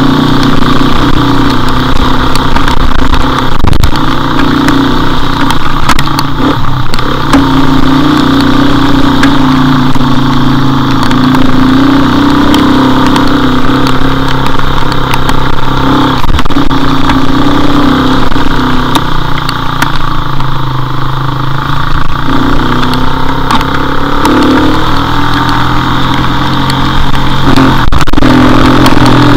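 Motorcycle engine running while riding, its pitch rising and falling with the throttle, over a steady rush of wind noise.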